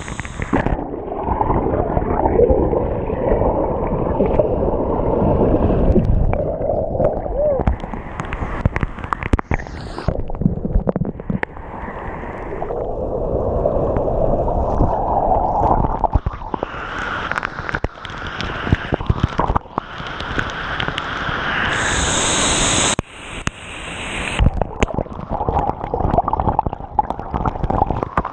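Rushing water of a waterfall: a loud, uneven noise that swells and dips.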